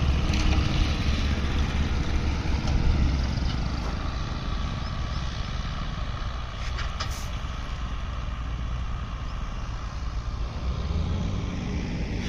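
An 8-ton vibratory road roller's diesel engine running with a steady deep hum, loudest at first, easing off through the middle and rising again near the end.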